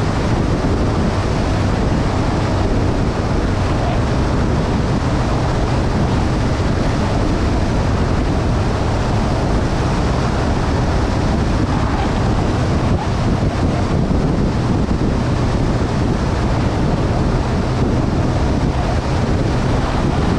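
Steady wind rush on a GoPro's microphone while a motorcycle rides at road speed, with the bike's engine as a low, even hum underneath.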